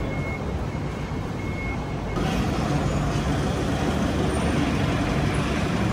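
Steady background noise, a low rumble with hiss and no distinct events. About two seconds in it changes abruptly to a louder, brighter steady noise.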